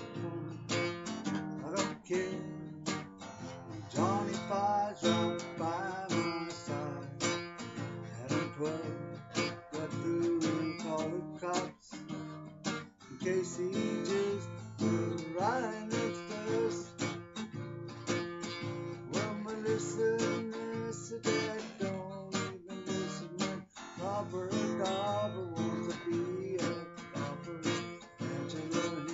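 Steel-string acoustic guitar strummed in a steady rhythm, with a man singing along over it.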